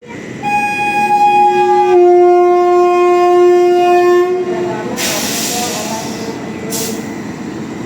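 Locomotive horn of the Rajdhani Express sounding at departure: a note held for about a second and a half, then dropping to a lower note held for about two seconds. After it comes a burst of air hissing and a short second hiss, over the steady rumble of the train.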